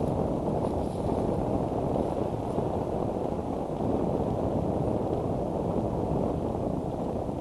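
Steady wind noise rumbling on an outdoor microphone, a low even rush with no distinct events.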